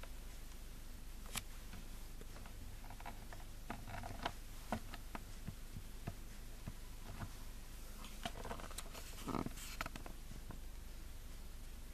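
Quiet room tone with a steady low hum, broken by scattered faint clicks and taps and a couple of soft rustles about four seconds in and again near the ninth second.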